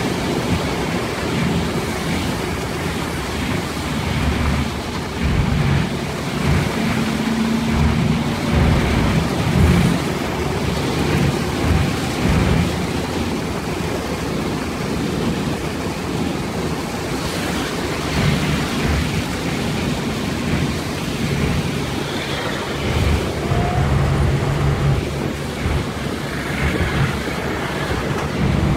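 Cabin noise of a vehicle driving on a wet road in the rain: the engine running under a steady rush of tyres on wet tarmac.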